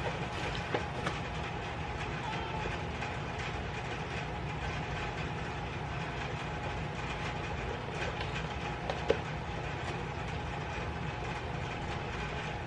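Steady low hum and hiss of background room noise, with a few faint ticks and one sharp click about nine seconds in.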